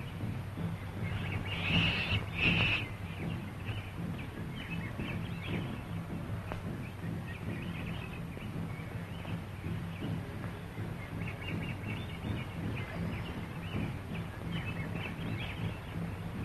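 Jungle animal calls: short high chattering calls, two louder ones about two seconds in and more scattered after, over the steady low hum of an old film soundtrack.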